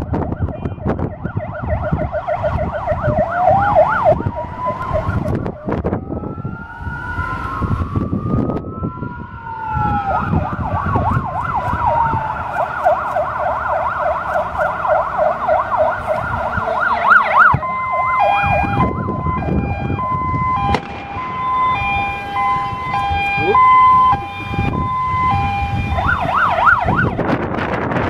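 Fire engine sirens. A fast warbling siren runs with a slower rising-and-falling wail overlapping it for several seconds. At about the two-thirds mark it switches to a two-tone alternating siren, then goes back to the fast warble near the end. Wind buffets the microphone throughout.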